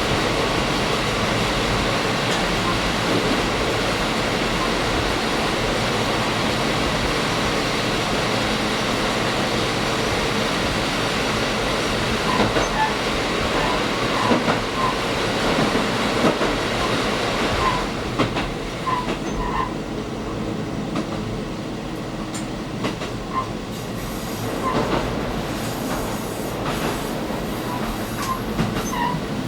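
KiHa 185 series diesel railcar of the Kyushu Ōdan limited express running along the line, a steady rumble of engine and wheels on rail heard from the front of the train. About two-thirds of the way through the noise drops somewhat, leaving scattered rail clicks and brief wheel squeaks.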